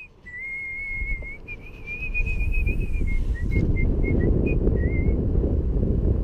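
A person whistling a wavering tune: a few long held notes, then short notes, over wind rumbling on the microphone that grows louder about two seconds in.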